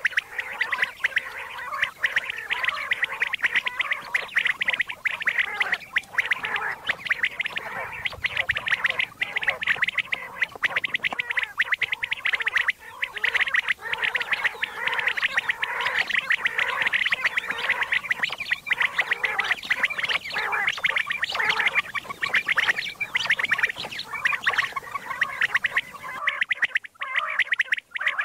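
Recorded common quail calls, a dense, continuous run of rapid chattering notes, of the kind played as a lure for quail hunting. Near the end it thins out, with short gaps.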